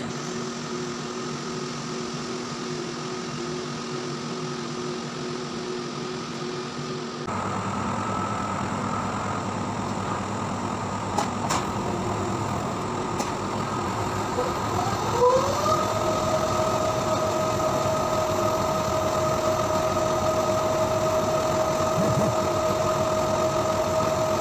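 GE Discovery NM/CT 670 Pro SPECT/CT scanner running with a steady mechanical hum. About fifteen seconds in, the CT gantry spins up: a whine rises in pitch, then levels off into a steady high whine.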